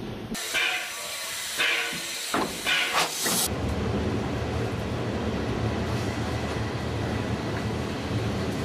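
Steam locomotive: a few short, loud bursts of steam hissing in the first three seconds or so, then a steady low rumble of the train running.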